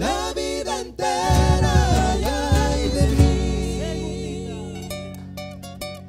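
Argentine folk vocal group singing in harmony with acoustic guitars and bombo drum beats, then holding a long final chord that slowly fades out.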